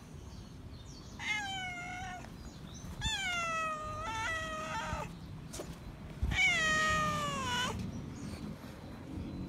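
Feral tabby cat meowing loudly for attention: four drawn-out meows, each falling in pitch, the third short and run on right after the second, and the last the longest and loudest, a little over six seconds in.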